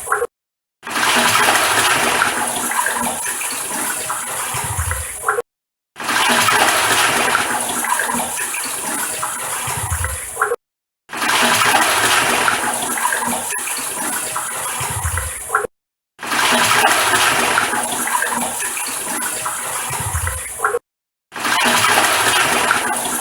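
Toilet cistern flushing: a loud rush of water that settles into a gurgling drain. The same flush of about five seconds repeats over and over, each time cut off by a brief gap of silence.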